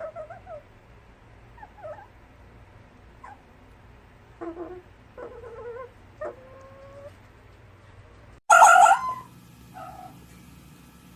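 Fox calls: a series of short, quiet, pitched whines and yips spaced a second or so apart, then a much louder, harsh call about eight and a half seconds in, followed by one faint call.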